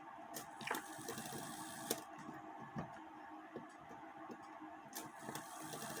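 Faint, irregular small clicks and ticks from an 1880 Albert Flieg cuckoo clock movement being advanced by hand: its wheels and trip levers clicking as it is worked to trip the cuckoo.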